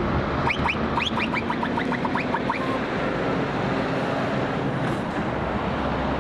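Scania R520 box truck's V8 diesel engine running as the truck drives past, a steady low hum with road noise. A quick series of about a dozen short rising chirps is heard from about half a second to two and a half seconds in.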